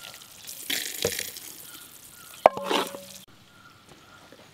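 Red sugar syrup poured from a steel mug into a clay pot, splashing in two pours, with a sharp clink of the mug at the start of the second. The sound cuts off suddenly about three seconds in.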